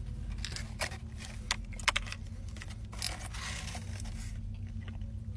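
Crinkling and scraping of a paper-and-cardboard burger box being handled, in short scattered crackles with a longer rustle about three seconds in, over a steady low hum inside the car.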